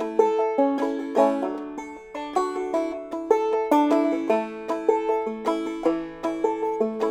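Five-string banjo played clawhammer style: a steady run of bright plucked notes, several a second, ringing briefly over one another.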